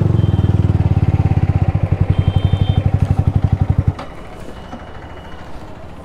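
Yamaha R15M's single-cylinder engine idling with a steady low pulsing, then switched off about four seconds in, cutting out abruptly.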